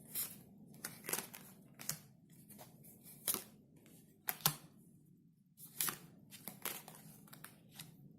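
Tarot cards being handled and drawn from the deck: a string of about a dozen short swishes and snaps of card stock, the sharpest about four and a half seconds in.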